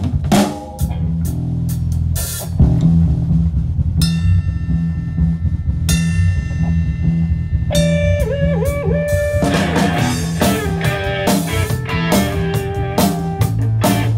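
Rock band playing live: an RG Rock Band drum kit and a five-string electric bass drive a steady groove. Electric guitar chords ring out about four and six seconds in, and wavering bent guitar notes follow around eight seconds in before the drums come back in full.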